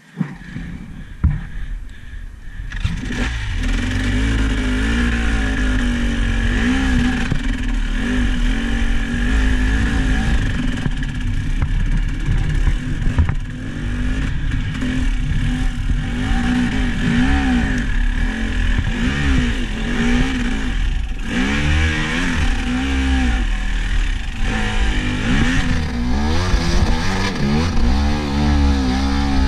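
A vehicle engine running under load and revving up and down again and again. It swells over the first few seconds and then runs steadily loud.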